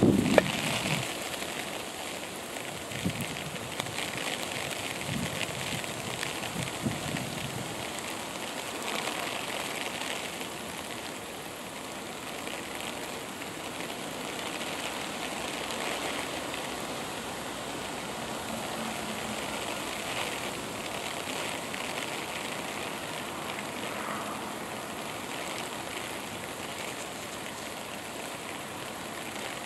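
Steady ambient background hiss with no clear single source, with a few soft low knocks in the first several seconds.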